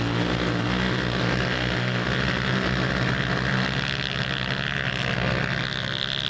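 Engines of several youth racing ATVs running together in a steady drone as the quads ride away up a hill trail.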